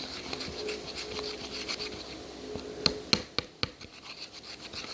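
Glue slime being stirred in a container: soft sticky scraping and patter, with a few sharp clicks about three seconds in.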